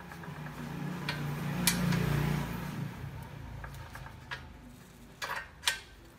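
Plastic wrapping rustling with a handful of sharp metal clicks and knocks as a steel auger bit is worked onto an earth auger's gearbox shaft and its retaining pin is fitted. The rustling swells about two seconds in; the clicks fall singly, loudest near the end.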